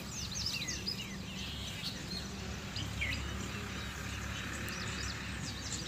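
Small birds chirping in quick rising and falling calls, thickest in the first second and again about three seconds in, over a steady low rumble.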